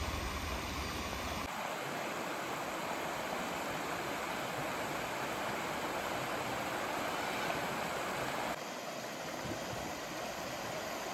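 Shallow rocky river rushing steadily over a small cascade into a pool, a constant watery rush. The tone shifts abruptly twice as the shot changes, with a low rumble under it at the start.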